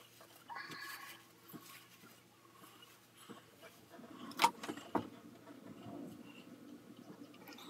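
Hands rustling through long hair as it is gathered and smoothed into a ponytail, with a sharp click about four and a half seconds in and a smaller one just after.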